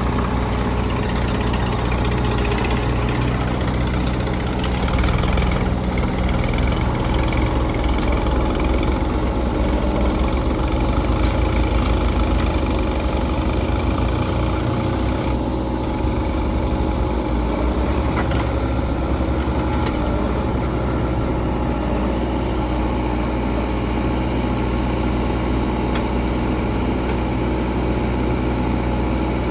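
Diesel engine of the loading machinery running at a steady idle, its low rumble swelling between about 5 and 13 seconds in and then settling back.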